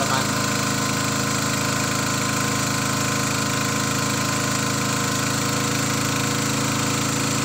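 Small boat's engine running steadily under way, heard from on board the moving boat.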